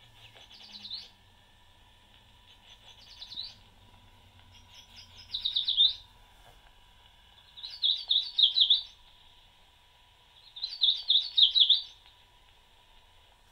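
Yellow warbler song played back from a sound card on a Microsonics 300 microphonograph through its small built-in speaker. There are five short phrases of quick high notes, each ending in a downward slur, a few seconds apart, the later ones louder, over a faint steady tone and hiss.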